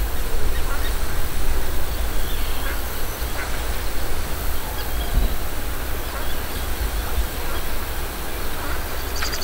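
Wind rumbling on the microphone, with a few faint, scattered calls from a duck and her ducklings.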